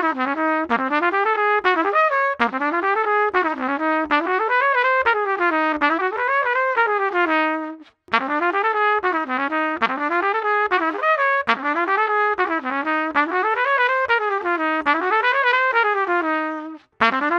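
LOTUS Universal Max trumpet, fitted with a bronze tuning slide and heavy valve caps, played in two phrases of quick rising and falling runs. There is a short break about halfway through.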